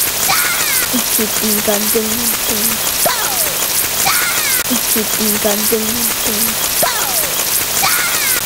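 A short background recording looped about every four seconds: a steady hiss like rain, with the same faint voice-like tones and falling chirps coming round each time.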